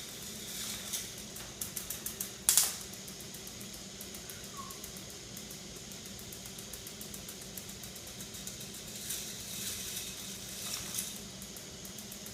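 K'NEX plastic toy ball machine running with a steady low hum. A quick run of plastic clicks about two seconds in ends in one sharp clack, and scattered clicks and clacks follow around nine to eleven seconds in.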